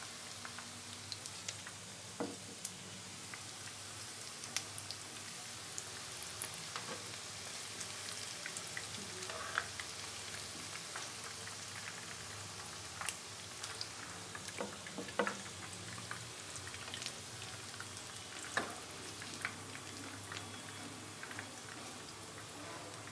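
Chicken and paneer kebab skewers frying over low heat in a pan of groundnut oil: a steady sizzle with scattered sharp pops and crackles.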